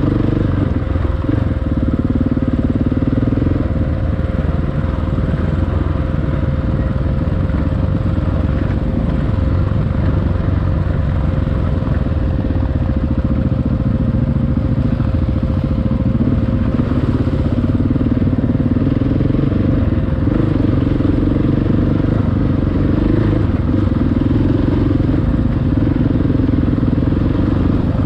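Enduro motorcycle engine running steadily while riding off-road, with no big revs or stops.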